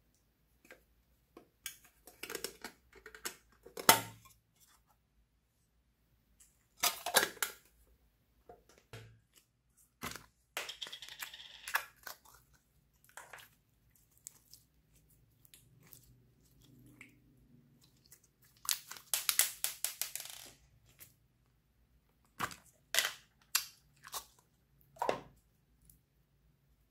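Clear slime full of round beads being squeezed, pressed and stretched by hand, giving irregular wet crackles, pops and squishes in short bursts, the longest near the middle.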